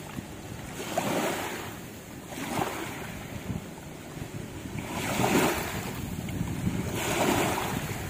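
Small waves washing up on a sand beach, with four louder surges that come irregularly a second or two apart, and wind on the microphone.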